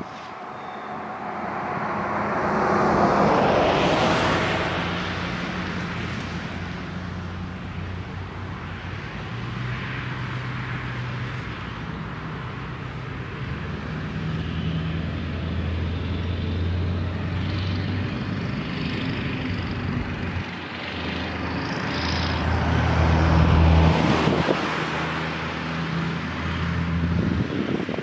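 Road vehicles passing: one swells and fades about three seconds in, another near the end, with a low steady engine hum in between.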